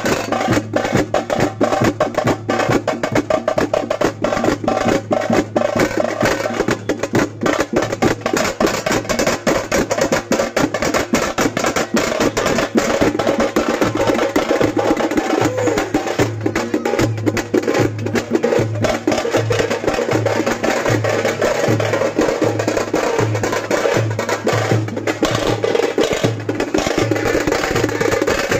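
Fast, dense drumming from a procession drum band, loud and unbroken. About halfway through, a deep, regular beat joins it.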